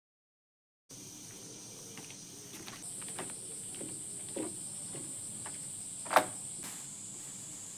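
Cicadas droning in a high, steady buzz that steps higher about three seconds in, over soft footsteps of slide sandals on a wooden deck and a single sharp knock about six seconds in.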